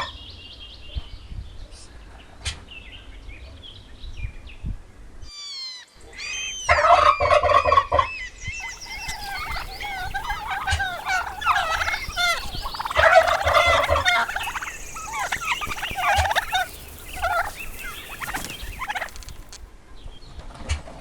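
Domestic turkeys gobbling: a quick rattling gobble about six seconds in, then a long run of gobbling and calling that stops shortly before the end.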